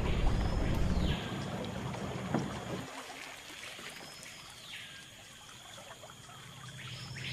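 Small outboard motor running on a river boat for about the first second, then dropping away, leaving quieter jungle ambience. Over it, a high whistle that rises, holds and falls, about a second long, comes three times: at the start, about four seconds in and near the end.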